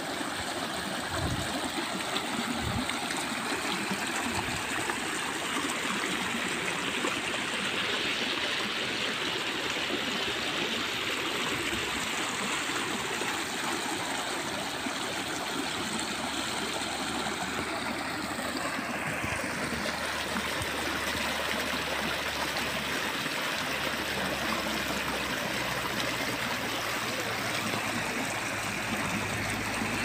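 Natural hot-spring water running and splashing over rocks in a shallow stream channel: a steady rushing.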